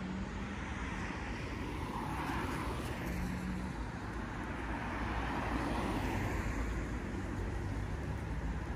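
Road traffic: cars passing on the street, the noise swelling with a pass about two seconds in and again about five to six seconds in, over a continuous low rumble.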